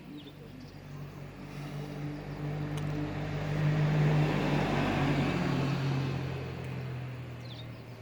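A motor vehicle driving past. Its engine hum and road noise swell to a peak about four seconds in, drop slightly in pitch as it passes, and fade away.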